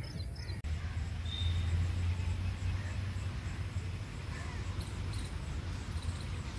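Open-air park ambience: a steady low rumble with scattered faint bird chirps, and one brief high whistle about a second and a half in.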